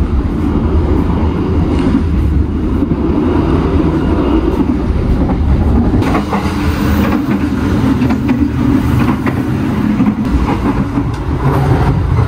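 Running noise of a moving passenger train heard from inside the coaches: a loud, steady rumble of wheels on rail, with scattered clatters and knocks.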